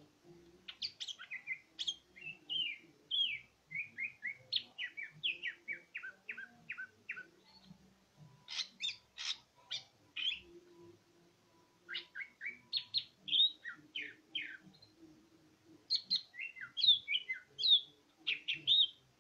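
Cucak ijo (green leafbird) singing vigorously: a fast, varied run of short whistled notes, many of them quick downward sweeps, in phrases with brief pauses between them, loudest near the end.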